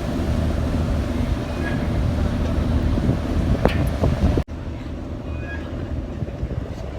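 Steady low drone of a ferry's engines heard on board, with a faint steady hum over it. About four and a half seconds in it breaks off abruptly and carries on quieter.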